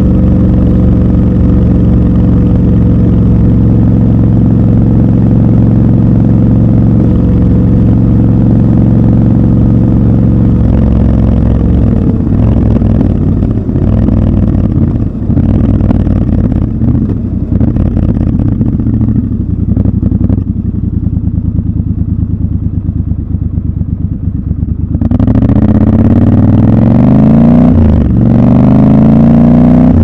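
Triumph Scrambler 1200 XC's 1200 cc parallel-twin engine, heard from the saddle. It runs steadily at cruising speed, then goes quieter and less even for most of the middle stretch. About five seconds before the end it accelerates, its pitch rising through one gear, breaking briefly at a shift, then rising again.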